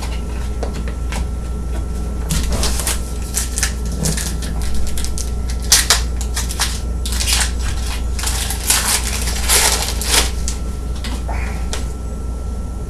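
A trading card pack wrapper being torn open and crinkled by hand, in a string of short crackling rustles over a steady background hum.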